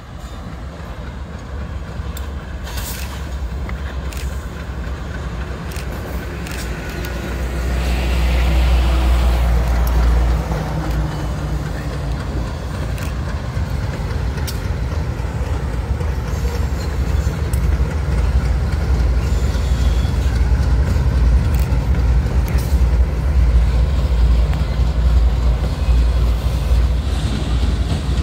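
Diesel engines of two GE freight locomotives rumbling steadily as they pull a train slowly past, growing louder as they come close. Occasional short clanks are heard.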